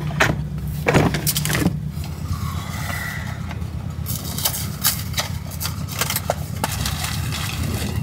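A cardboard cereal box and its plastic inner bag being handled and torn open, with repeated crinkling and rustling that grows denser in the second half as cereal begins pouring into a bowl near the end. Under it runs the steady low hum of the truck's idling 7.3 Powerstroke diesel engine.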